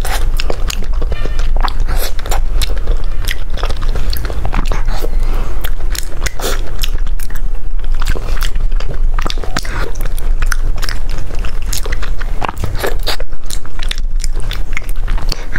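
Close-miked biting and chewing of a crispy fried dessert: a dense run of sharp crunches and crackles, with wet mouth sounds between them.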